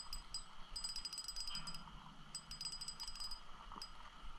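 Spinning reel clicking rapidly with a light metallic ring, in spurts of about a second with short pauses, as a small channel catfish is reeled in.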